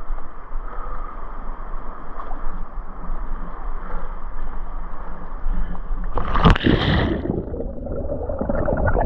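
Sea kayak tipping over for a sweep roll: light water noise and wind on the microphone, then a sudden big splash about six seconds in as the boat capsizes, followed by muffled gurgling and churning water with the camera underwater.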